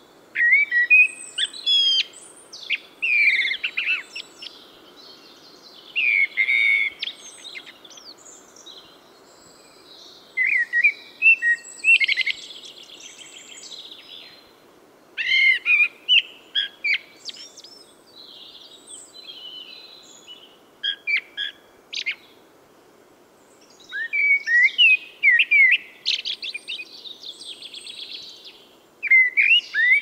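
Eurasian blackbird singing: about seven separate phrases of clear gliding whistles with higher, twittering endings, each phrase a second or two long with short pauses between. A steady low background hiss runs underneath.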